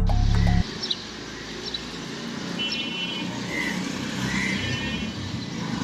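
Outdoor street ambience: a steady hum of passing traffic with a few short high chirps. A loud low music drone cuts off suddenly under a second in.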